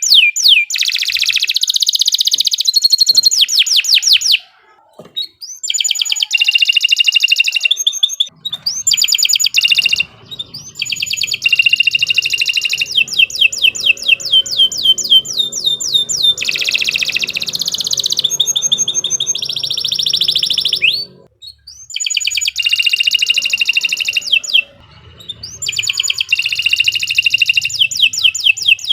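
Canary singing a long, loud song of fast repeated trills and rolling phrases, with a few brief pauses between phrases.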